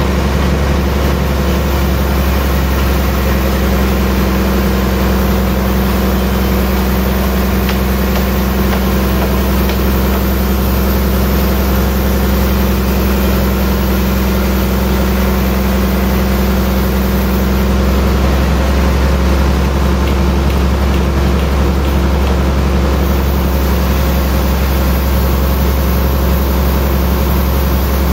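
Large band sawmill running, a loud, steady machine drone with a deep hum. One steady tone in the drone drops out about two-thirds of the way through.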